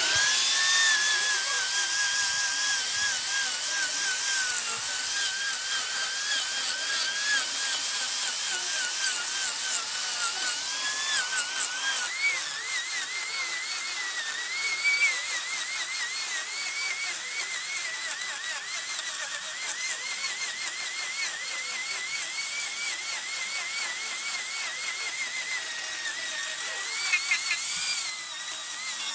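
A high-speed handheld power tool running continuously on wood, its whine wavering as the load changes. The pitch jumps higher about twelve seconds in.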